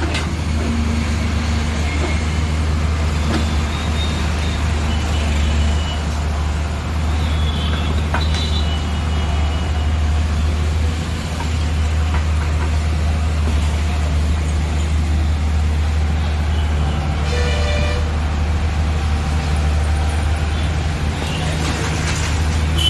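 Heavy diesel engine of an excavator at work, running steadily, with a short vehicle horn toot about three-quarters of the way through.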